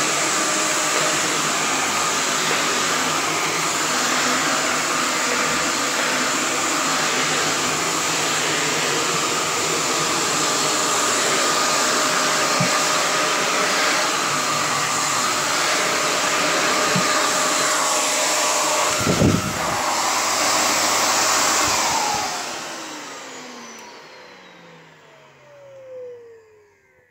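Miele Cat & Dog canister vacuum cleaner running steadily as it sucks over a hard wooden floor, with one short thump about three-quarters of the way through. It is then switched off and the motor winds down, its whine falling in pitch and fading away near the end.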